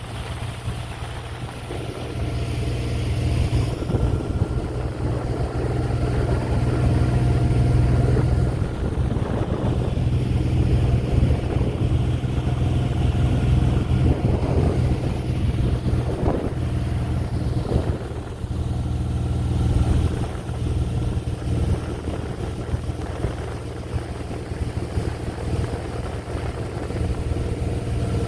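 Motorboat engine running steadily under way, with a strong low hum. It grows louder a couple of seconds in and eases back a little about two-thirds of the way through.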